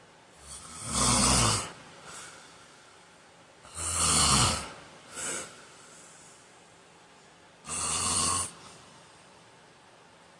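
A sleeping man snoring: three loud snores about three and a half to four seconds apart, the second followed by a short fainter breath.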